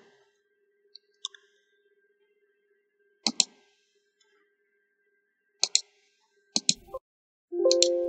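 Computer mouse button clicks, single and double, spread out over several seconds. Near the end a Windows system warning chime sounds and fades as a format warning prompt pops up on screen.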